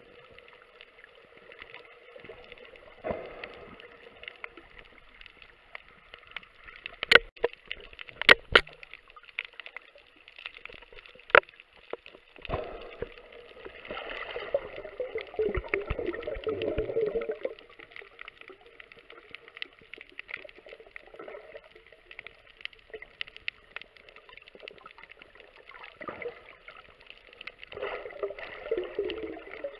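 Underwater recording of a scuba diver's exhaled bubbles gurgling in muffled bursts, one about every twelve seconds, the longest about halfway through. A few sharp clicks are the loudest sounds, mostly in the first half.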